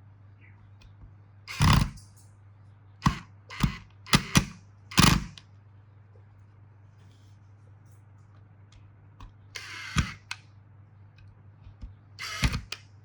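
Knocks, clicks and short scrapes of parts and tools being handled, a cluster of them in the first five seconds and more about ten and twelve seconds in, over a steady low hum.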